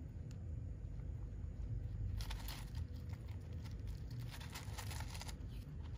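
A hamster rummaging through a bowl of dry food mix (dried vegetable leaves, seeds and puffs), the pieces rustling and crackling. A few faint ticks at first, then a dense run of crackling from about two seconds in until near the end.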